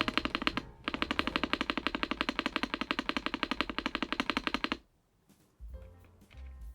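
Rapid, even clatter of keystrokes on a Kzzi K98 mechanical keyboard, pausing briefly near the start and stopping about five seconds in. Background music plays underneath.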